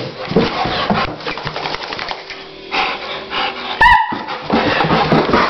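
Excited rottweiler panting hard and scuffling close up, with rapid breaths and clicking, and one short high yelp about four seconds in.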